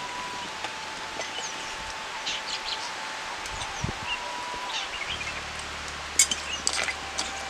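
Small birds chirping in short calls over an outdoor background, with a faint steady tone that steps up and down in pitch and a brief sharp rattle about six seconds in.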